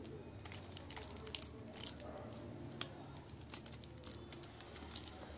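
Faint scattered clicks and plastic crinkles as a small remote control in a clear plastic sleeve is handled and its buttons pressed, over a low steady hum.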